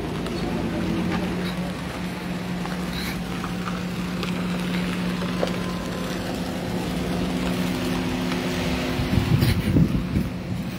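A car engine runs steadily with road noise, heard from a vehicle moving along a dirt road. A few irregular thumps come near the end.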